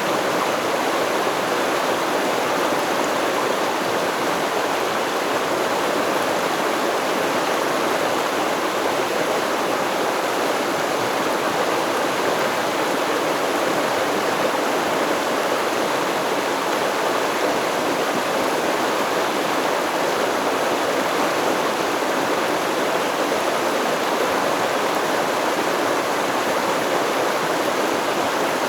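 River water flowing, a steady, even rush that does not change.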